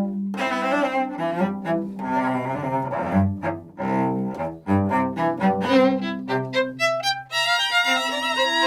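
String trio of two violins and a cello playing live: bowed melodic lines over cello bass notes, with the violins moving to a bright, high chord about seven seconds in.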